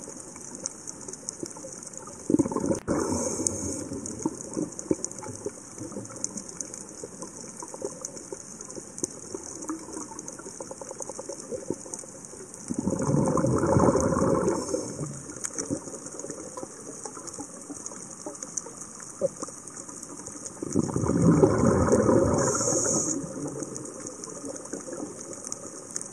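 Underwater, a scuba diver's exhaled bubbles rush past the camera in three bursts of about two seconds each, roughly nine seconds apart, over a steady high hiss and scattered faint clicks.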